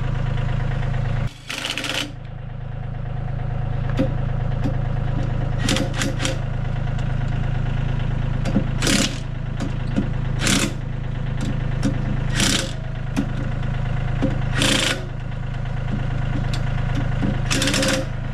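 An engine running steadily at idle, with short, loud bursts of noise about every two to three seconds.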